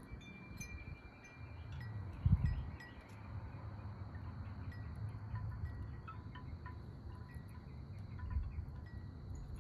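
Short, repeated high ringing notes over a low rumble, with a brief louder bump about two seconds in.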